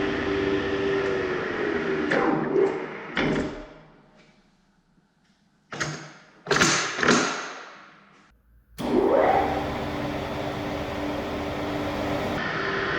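Metal lathe running steadily with its gear drive humming, then winding down with a falling tone and several clunks, going almost quiet. A few loud metallic knocks ring out, then the lathe starts up again about nine seconds in with a rising whine and settles back into steady running.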